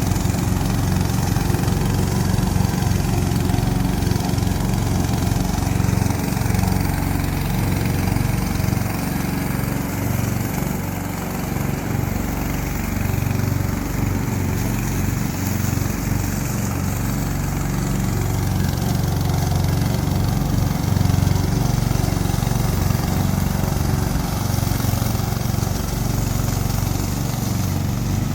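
Engine of a remote-control slope mower running steadily, its speed wavering slightly.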